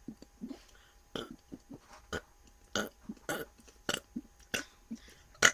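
A rapid string of short burps, about one every half second, each brief and much quieter than the talk around them.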